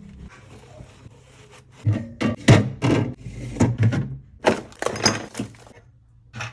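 Hard items being knocked and set down during refrigerator cleaning: faint handling noise, then from about two seconds in a quick run of a dozen or so clunks and knocks over three seconds, with one more near the end.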